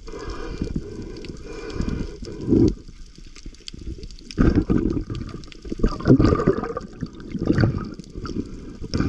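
Muffled underwater gurgling and sloshing as heard by a camera held just below the water's surface, coming in irregular surges every second or so.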